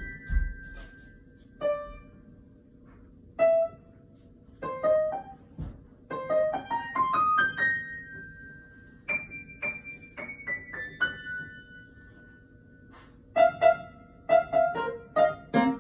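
Upright piano played one note at a time: a simple melody in short phrases with brief gaps between them, each note ringing and fading, with the notes coming closer together near the end.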